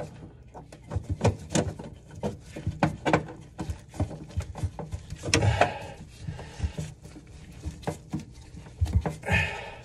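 Irregular clicks, taps and knocks of gloved hands fastening metal mounting clips to the underside of a kitchen sink, with brief rustling scrapes about five and nine seconds in.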